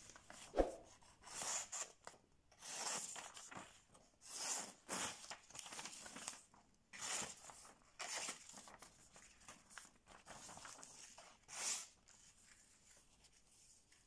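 A series of soft rustling, scraping handling noises in short bursts, fading out near the end.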